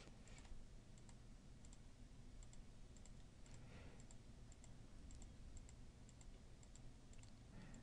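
Several faint computer mouse clicks, often in quick pairs, over near-silent room tone.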